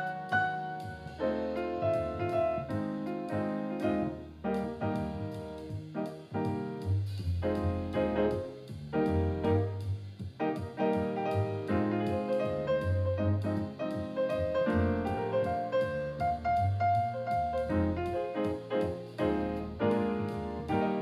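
Solo jazz piano on an acoustic grand piano: a continuous flow of melody notes and chords over low bass notes.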